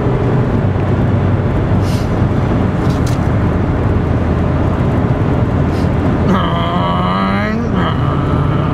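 Cabin noise of a 1994 Ford Escort with the 1.9-litre four-cylinder driving at speed: a steady engine drone under loud road and wind noise. About six seconds in, a brief pitched tone lasts just over a second.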